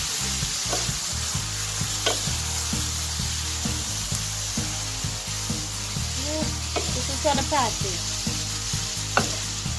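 Minced meat sizzling as it fries in a pan while it is stirred with a spatula, with a few sharp taps of the spatula against the pan.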